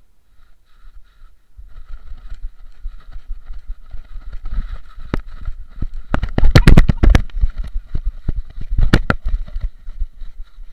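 A camera strapped to a cockerel's back rubbing and knocking against the moving bird, a rough rustling rumble with many sharp clicks. Two clusters of loud cracks come about six seconds in and again about nine seconds in.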